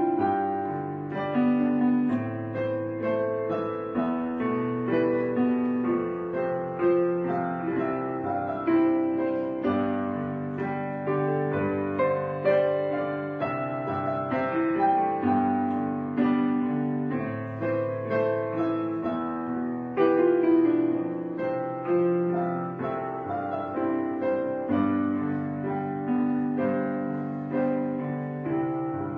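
Background piano music, a steady run of notes with no speech.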